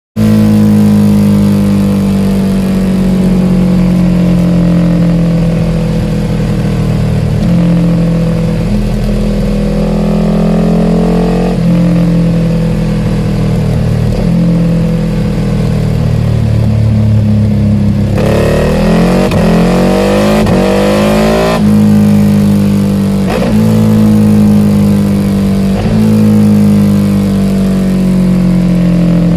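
Ducati Panigale R engine running loud through an Akrapovic full titanium exhaust on a dyno, its pitch stepping and gliding up and down repeatedly as it is revved, with a stretch of quick blips about two-thirds of the way through.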